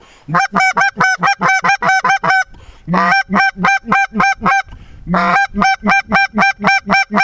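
A hunter calling geese: rapid, evenly spaced honk notes, about five a second, in three runs broken by two short pauses, made close to the microphone to lure a lone goose into range.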